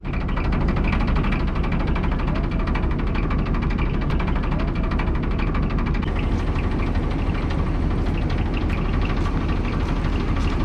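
Diesel engine of an Indian Railways DMU train idling while the train stands at the platform, a steady low rumble with no change in speed.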